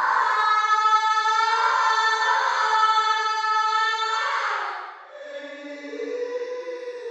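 Ghostly woman's voice wailing: one long, high, held cry that fades out about five seconds in, followed by quieter, lower moaning tones that step up in pitch.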